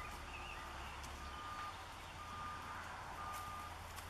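Vehicle reversing alarm beeping, a steady single-pitched beep about half a second long repeating about once a second.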